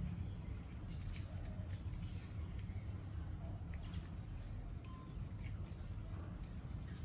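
Cats eating, with faint scattered clicks and a few small high squeaks over a steady low rumble.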